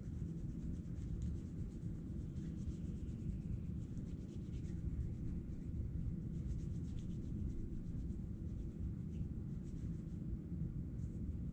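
Hands rubbing together with alcohol-based hand rub, faint soft swishing friction over a steady low background rumble.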